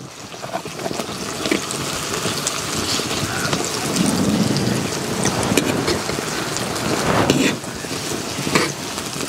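Sliced onions sizzling and crackling as they fry in hot oil in a clay pan, stirred with a slotted spoon; this is the stage where the onions are fried until brown.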